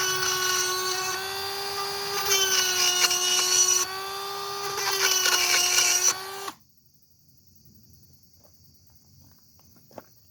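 Small high-speed electric power tool running steadily with a single whining tone, growing louder and rougher twice as the wooden duck-call part is pressed against the sanding surface, then switched off and winding down about six and a half seconds in. A single faint click follows near the end.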